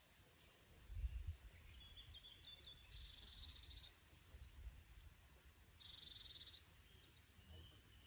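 Two short, high trills from a small animal, each under a second long and about three seconds apart, with fainter chirps between them. A low rumble about a second in.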